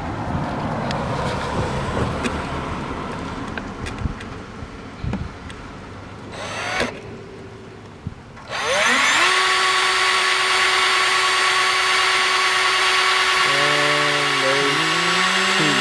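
Power drill boring a pilot hole, the bit grinding and chattering through the material. About seven seconds in it drops away for a moment, then spins back up to a loud, steady whine at constant speed.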